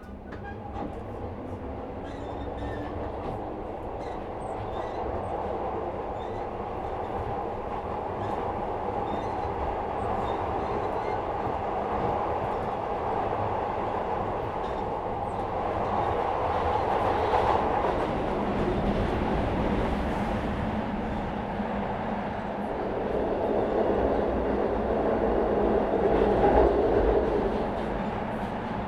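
Inside a Metro-Cammell Glasgow Subway train as it gets under way: a faint rising motor whine in the first couple of seconds, then steady wheel and running noise that grows louder as the train picks up speed.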